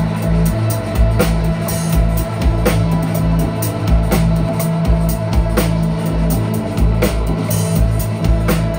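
Live band playing instrumental music: a drum kit keeps a steady beat, a hit roughly every 0.7 seconds, over a sustained low bass note and electric guitar.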